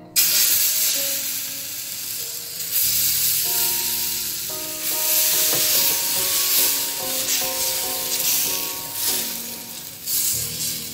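Semolina (sooji) cheela batter sizzling on a hot tawa, starting suddenly as the batter hits the griddle and going on as it is spread out with a spoon. Background music with steady notes comes in about three seconds in.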